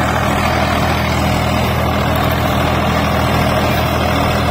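Swaraj 855 FE tractor's three-cylinder diesel engine running steadily under load, working an 8-foot Param rotavator through the soil.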